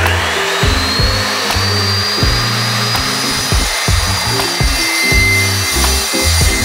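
Evolution metal-cutting chop saw spinning up with a rising whine, then cutting steadily through metal tubing.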